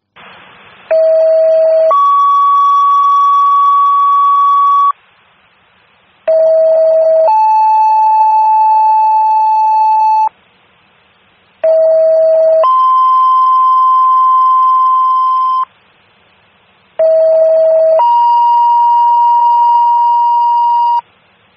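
Fire dispatch two-tone paging tones over a radio scanner: four pairs, each a short lower tone of about a second followed by a longer, higher tone of about three seconds, the second tone's pitch changing from pair to pair, with radio hiss in the short gaps between. The tones alert fire companies to an incoming dispatch.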